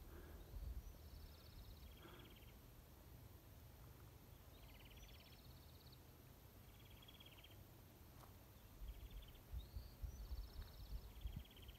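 A small songbird singing faint, short trilled phrases, about one a second, alternating between a lower and a higher trill, some of the higher ones opening with a quick rising note. Under it runs a low steady rumble, with soft thumps in the last few seconds.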